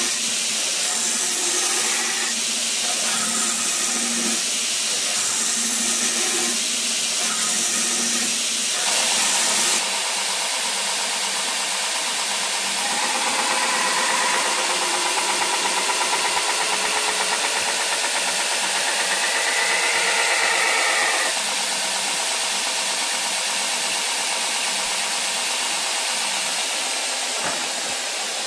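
Belt grinder running, its abrasive belt grinding the primary bevel into a 1095 carbon-steel tanto blade held in a wooden bevel jig: a steady, loud grinding hiss, with a stretch of louder, higher-pitched grinding in the middle as the blade is pressed harder against the belt.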